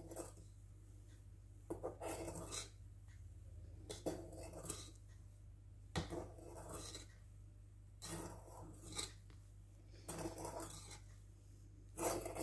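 Spatula scraping and rubbing around a mixing bowl of cake batter, folding it from bottom to top, in soft separate strokes every second or two, with a sharp tap on the bowl about six seconds in.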